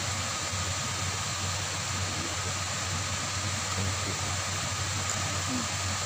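Steady rushing of water pouring over a concrete weir's stepped spillway, an even noise with a low rumble underneath that does not change.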